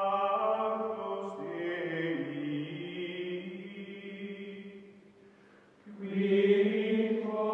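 Outro music of slow, chant-like choral voices holding long notes. It dies away shortly before the six-second mark, then comes back louder on a new held chord about six seconds in.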